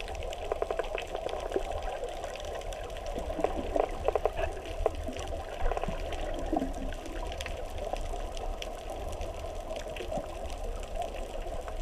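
Muffled underwater sound heard through a GoPro's waterproof housing while snorkeling: a steady dull rush of water with many scattered small clicks and crackles, busiest about a third of the way in.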